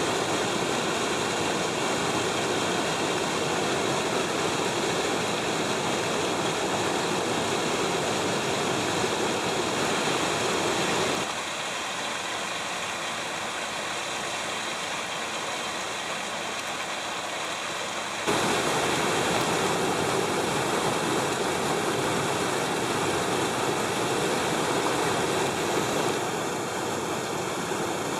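River water pouring over a low weir, a steady rushing of falling and churning water. It is quieter for several seconds in the middle.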